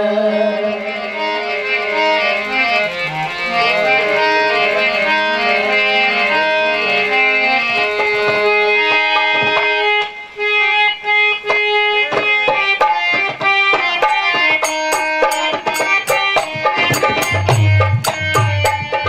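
Instrumental passage of a Rajasthani bhajan: a harmonium plays a held, stepping melody, and hand-drum strokes on a dholak come in about halfway and grow busier, with deep bass beats near the end.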